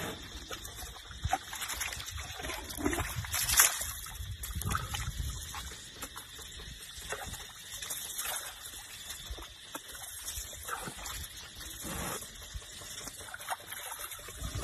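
Water splashing and dribbling as elephants' trunks spill water into a pool: irregular small splashes and drips, the loudest about three and a half seconds in.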